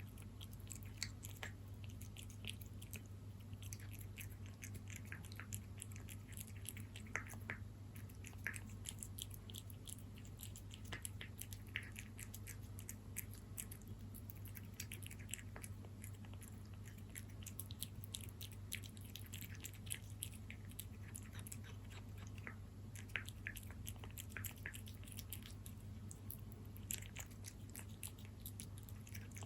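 Cat eating moist salmon wet cat food: a continuous, irregular run of small wet chewing and smacking clicks, over a steady low hum.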